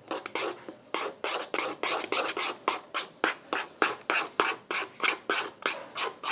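Glitter-glue slime being stirred in a bowl: quick, regular wet strokes, about four a second, as the activated slime starts to thicken.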